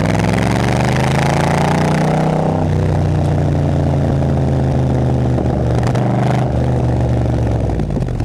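Vehicle engine under load, rising in revs and then dropping sharply in pitch about two and a half seconds in. It holds a steady lower note before the revs fall off near the end. The owner questions whether it is misfiring.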